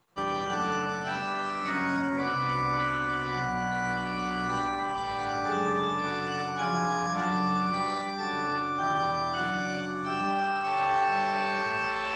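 Organ playing a slow piece in held, sustained chords that change every second or so; it starts suddenly at the opening.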